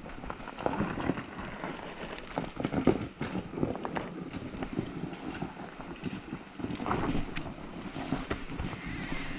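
Off-road motorcycle engine running on a steep dirt climb, uneven and irregular, with wind noise on the microphone.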